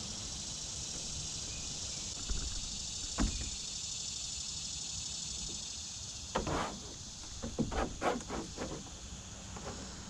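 Steady high-pitched drone of summer insects over a low rumble. A single knock about three seconds in, then a run of knocks and splashes from the canoe and paddle over the last few seconds as the canoe turns.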